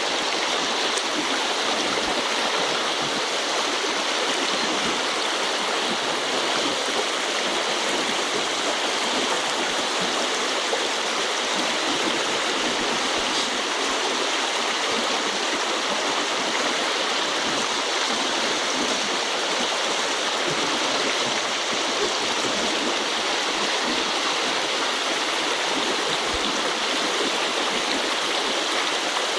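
Small river's current rushing steadily, an even hiss of flowing water with no change in level.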